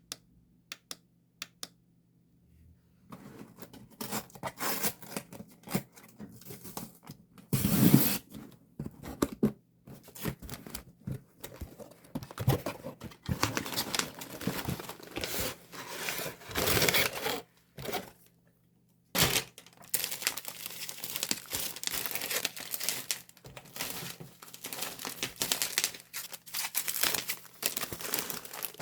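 Plastic sleeves and packaging being crinkled and torn open while photocards are sorted, in long spells of rustling. A few light clicks come first, there is one louder knock about eight seconds in, and a brief pause just before the rustling resumes.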